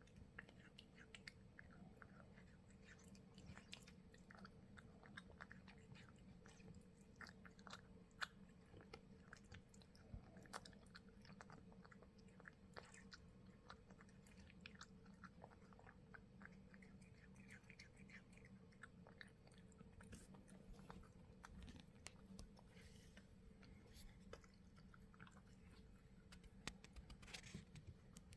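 Domestic cat eating, with faint, quick, irregular wet chewing and smacking clicks, over a steady low hum.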